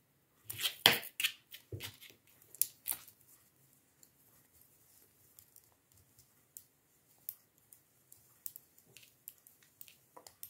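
Knitting needles clicking and scraping together, with the yarn rustling, as purl stitches are worked. A quick run of louder clicks in the first three seconds, then only scattered light ticks.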